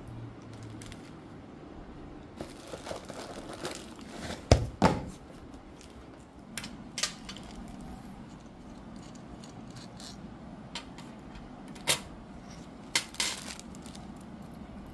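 Plastic wrapping crinkling and small metal exhaust fittings (a band clamp, bolt and wrench) clinking and being set down on a hard surface. There are two loud knocks about four and a half seconds in and a few sharp clicks later.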